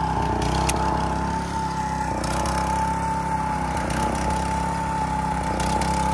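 Small engine of a Daesung walk-behind soybean seeder (rotary tiller, ridger, mulcher and seeder in one) running steadily, with a constant high whine over its low hum.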